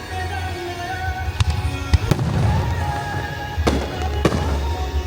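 Fireworks bursting with sharp bangs, four loud ones within a few seconds, over a pop song with a heavy bass beat played through loudspeakers for the synchronised show.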